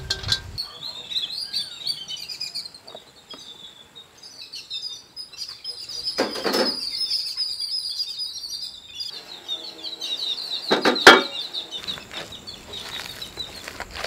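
Small birds chirping and singing steadily in the background, with two louder short bursts of handling noise from hands working a sticky coconut and treacle mixture in a large metal pot: one about six seconds in, and the loudest about eleven seconds in.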